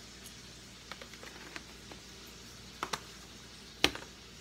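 Light clicks and taps of a plastic spice container being shaken and handled over a stainless steel mixing bowl, with a sharper knock near the end as it is put down.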